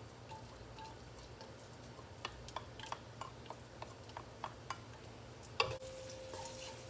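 Sliced garlic sautéing in hot oil in a pan, heard as faint scattered crackles and pops. About five and a half seconds in comes a sharper clink, followed by a steady ringing tone.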